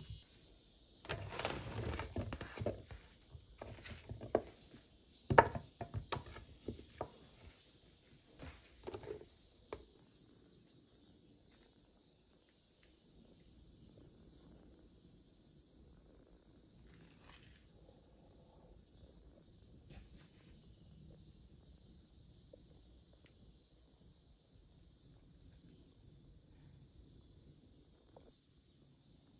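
Crickets chirring steadily in the background. During the first ten seconds or so there is a run of sharp knocks and clatters.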